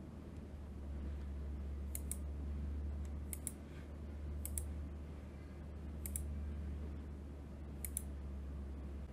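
Computer mouse clicking, in five quick pairs like double-clicks spread over several seconds, over a steady low hum.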